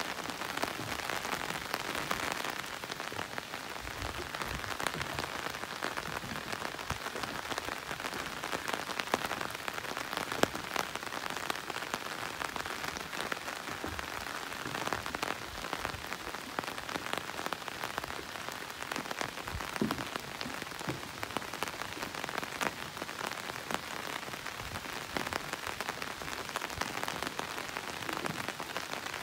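Steady rain falling, a continuous hiss dotted with the ticks of single drops.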